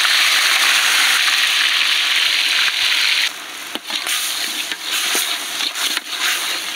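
Ground onion paste frying in hot cooking oil, a loud steady sizzle. About three seconds in it drops abruptly to a quieter crackle with scattered pops.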